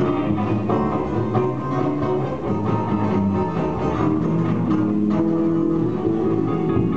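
Live band music: an instrumental passage led by guitar over a steady beat, with no singing.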